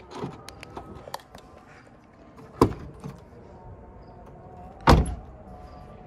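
Two heavy thumps about two seconds apart, the second one louder, with lighter clicks and knocks between them.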